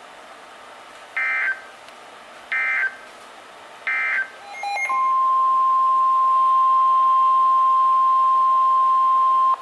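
Three short, evenly spaced bursts of EAS/SAME digital data tones, the end-of-message signal that closes an alert. About a second later comes the single steady 1050 Hz NOAA Weather Radio warning alarm tone, which runs loud for nearly five seconds and cuts off as the next warning is read.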